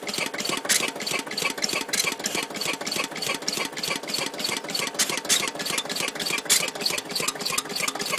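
Lister CS 6/1 single-cylinder diesel engine running steadily, with a regular beat of about five knocks a second. A squeak comes from its oil pump arm, which is dry.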